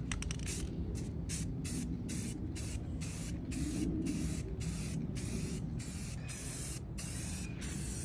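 Aerosol spray-paint can spraying in a quick run of short bursts, two or three a second with brief breaks between, laying the first coat of brown paint.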